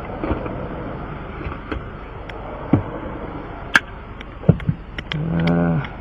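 Roadside tire-repair work: several sharp clicks and knocks of tools, then a brief steady mechanical hum lasting under a second near the end, over a constant background rumble.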